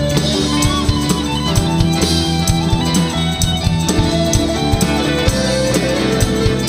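Live rock band playing an instrumental passage: an electric guitar plays a lead line with bent, sliding notes over a steady drum kit beat and bass.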